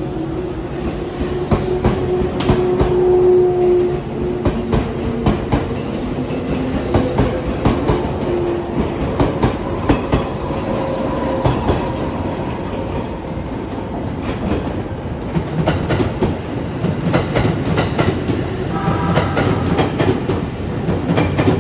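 JNR 485-series electric train 'Hana' pulling out of a station, its wheels clacking over rail joints as the carriages pass, with a steady motor hum that ends about four seconds in. Near the end a second electric train comes in on the next track, adding a brief chord of tones.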